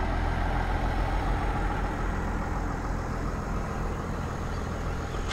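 Pickup truck's engine idling steadily, a low, even sound with no change in speed.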